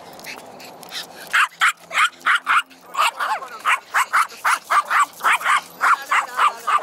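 Small dog barking in a rapid string of high yaps, about three or four a second, starting about a second and a half in.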